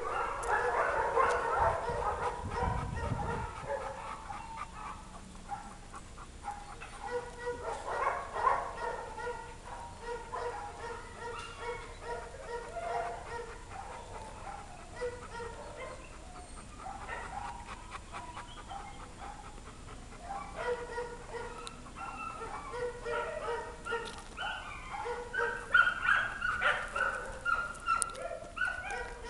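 Dogs barking on and off, louder in the first few seconds and again near the end.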